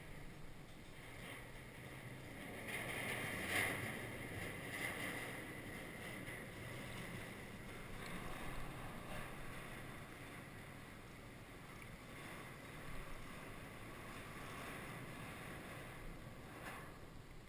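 Faint water lapping and swishing against a small boat's hull, with a brief sharper noise about three and a half seconds in.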